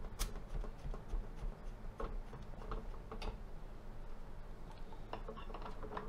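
A few faint, scattered clicks and light taps from hands handling a digital refrigerant manifold gauge and its hoses and fittings, over a low steady hum.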